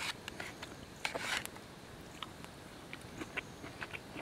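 A person quietly biting into and chewing a mouthful of steak, with scattered small clicks and a short rustle about a second in.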